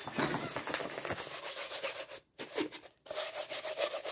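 Rolled diamond painting canvas being handled and unrolled: quick, scratchy rustling and rubbing of the stiff rolled canvas in the hands, broken by two brief pauses a little past halfway.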